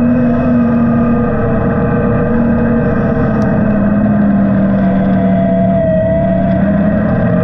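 Vehicle engine running steadily at cruising speed while moving. Its pitch sags slightly about five seconds in.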